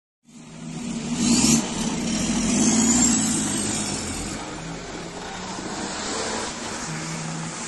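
Off-road 4x4's engine revving hard under load on a steep dirt climb, cutting in abruptly and loudest in the first three seconds, with a rising high whine over it, then easing to a steadier run.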